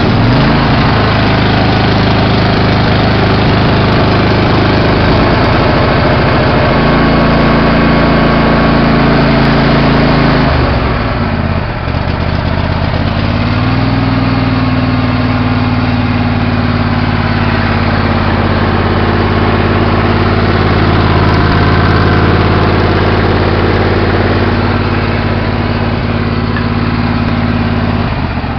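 Ford New Holland LS55 lawn tractor engine running loud and steady just after a cold start on choke. Its speed sags briefly about eleven seconds in, then picks up and holds steady.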